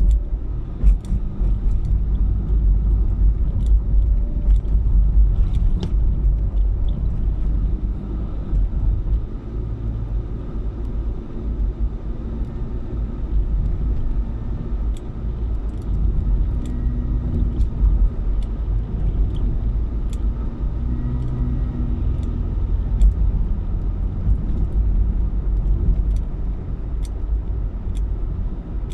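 A car driving at a steady pace: a low engine and road rumble, with small scattered clicks.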